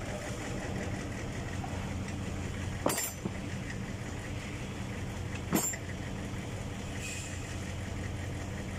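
A truck engine idles steadily with a low hum. Two sharp metallic clanks come about three and five and a half seconds in, from the steel hook block and tools being handled on a steel work table.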